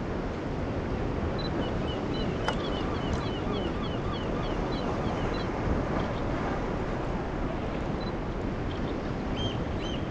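Choppy sea water slapping around a sea kayak, with wind buffeting the microphone. Over it, a bird gives short high chirps, about three a second, from about a second and a half in to the middle, and a few more calls near the end.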